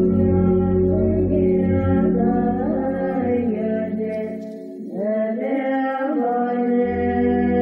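Background music with a sung vocal over held chords; the bass drops out for about two seconds past the middle and returns near the end.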